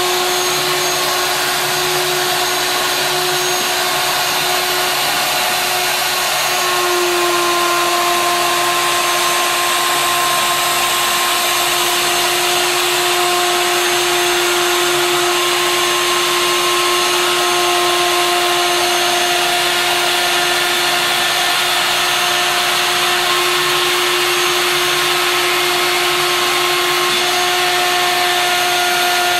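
The router spindle of a DIY CNC router running at high speed with a steady whine, its 1/8-inch single-flute end mill cutting a profile through MDF. The sound gets slightly louder about seven seconds in.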